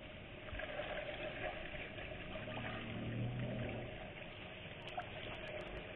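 Small lake waves lapping and splashing against a kayak's hull, with a faint low hum for a second or two in the middle.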